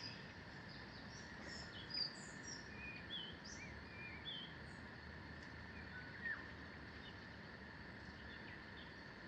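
Small songbirds chirping and whistling: a run of short, high calls over the first few seconds, and one more call about six seconds in, over a faint steady hiss.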